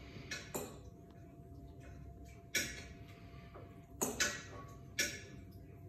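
About half a dozen light, sharp clinks and taps of kitchen utensils against dishes, scattered irregularly, two of them close together about four seconds in.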